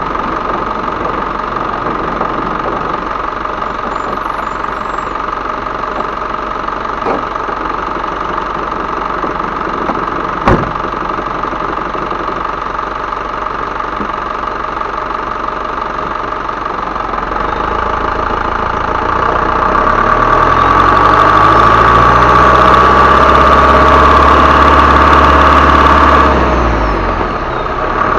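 Isuzu Elf HD truck's 125 PS turbo-diesel engine idling with a steady high turbo whistle, with one sharp click about a third of the way in. About two-thirds through it is revved up and held high for several seconds, the whistle growing louder, then it drops back to idle near the end.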